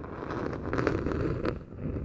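Hands rubbing and scratching on the microphone for ASMR: a dense, low rustling rub with crackles, dipping briefly near the end.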